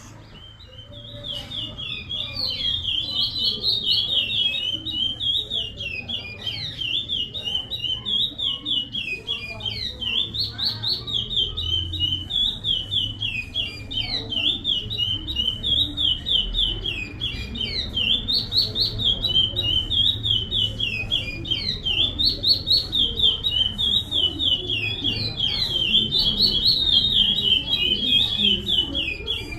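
Curió (chestnut-bellied seed-finch) singing the Paracambi song type: a fast, continuous run of high whistled notes, repeated phrase after phrase, starting about a second in. A low hum lies underneath.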